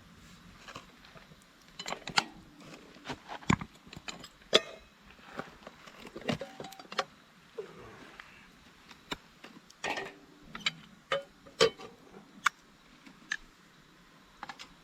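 A series of irregular sharp clicks, clinks and knocks, a few of them ringing briefly.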